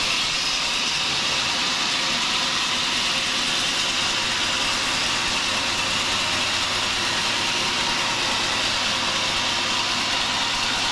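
Sawmill band saw cutting lengthwise through a large mahogany log: a steady, even hiss of the blade in the wood over the running machine, unbroken throughout.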